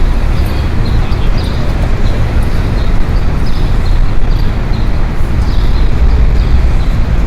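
City street traffic ambience: a steady rumble of passing cars.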